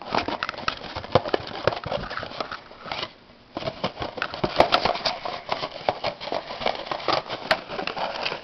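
Hand rummaging through a small box of paper and card toy hang tags: a dense run of rustling, clicking and light knocking, with a short pause about three seconds in.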